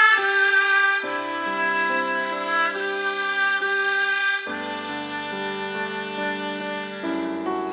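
Haegeum ensemble, Korean two-string bowed fiddles, playing a slow sustained melody together, with lower held notes underneath that change about halfway through.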